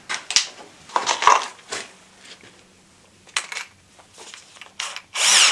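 Small hardware being handled by hand: a run of clicks, rattles and light knocks as a small box of screws is set down and a bit is fitted to a cordless drill, with a louder scraping rustle near the end. The drill motor does not run.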